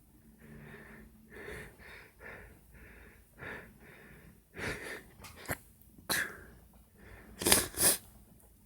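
A person working up to a sneeze with a run of short breathy gasps, then sneezing loudly near the end.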